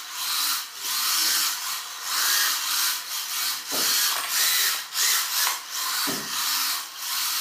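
WLtoys K969 mini RC drift car's small electric motor whining up and down in repeated throttle bursts, with its tyres scrubbing across a tile floor as it drifts.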